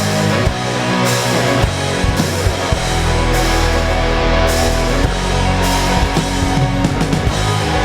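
Rock band playing an instrumental passage: electric guitars over bass and drums with a steady beat, no vocals.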